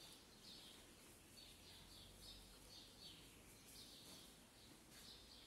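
Near silence with a bird chirping faintly in the background, short high calls repeating about twice a second.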